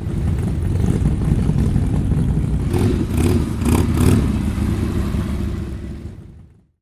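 Vintage car engine running with a rough, low rumble, with a few sharp clattering knocks about three to four seconds in, then fading out.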